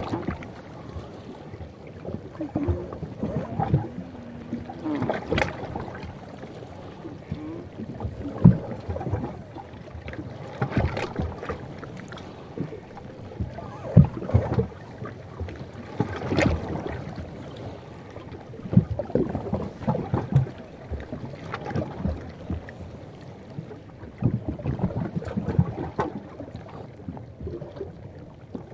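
New sea ice cracking, creaking and knocking: thin ice and floes shift and bump against each other, giving irregular sharp cracks and knocks. There are a few short squealing creaks near the start.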